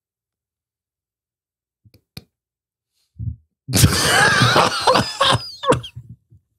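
A loud non-speech vocal outburst from a person lasting about two seconds, a little over halfway through, after a faint click and a brief low sound.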